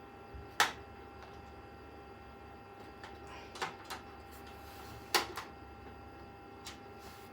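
Scattered sharp clicks and taps of PC parts being handled, about six in all, the loudest one about half a second in and another about five seconds in, over a faint steady whine.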